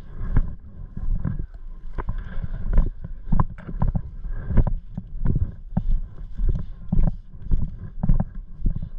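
Footsteps of a person walking at a steady pace, picked up by a body-worn camera: even thuds, about three every two seconds, with rustling of gear and clothing.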